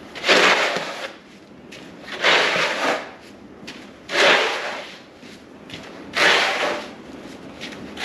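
Snow shovel scraping along a concrete pad as it pushes snow, four strokes about two seconds apart.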